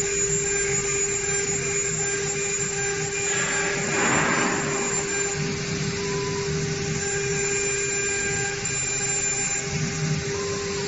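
CNC router spindle running with a steady high whine as the bit engraves a PVC sheet, with a louder stretch of cutting noise about four seconds in.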